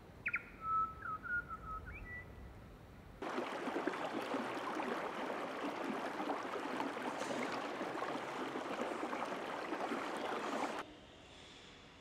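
A few short whistled bird calls with quick pitch glides, then a steady rush of running water that starts suddenly about three seconds in and cuts off abruptly near the end.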